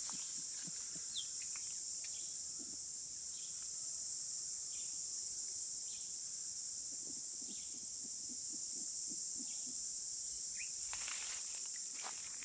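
Steady high-pitched insect drone, with a few brief bird chirps, and rustling near the end.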